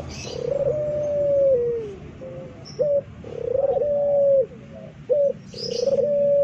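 Puter pelung (Barbary dove) cooing loudly: a short rising note, then a long held coo that drops in pitch at the end, twice, with a third coo beginning near the end.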